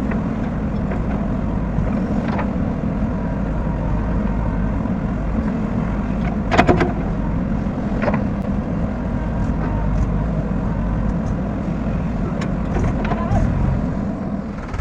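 Diesel engine of a backhoe loader running steadily under work, with a sharp clank about six and a half seconds in and a lighter one about a second and a half later.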